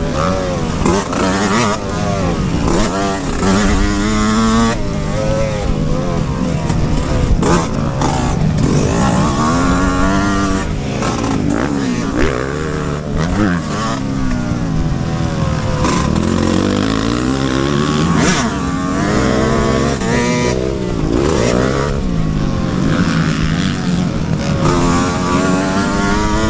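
Motocross dirt bike engines revving, their pitch climbing and dropping again and again as the throttle is opened and shut.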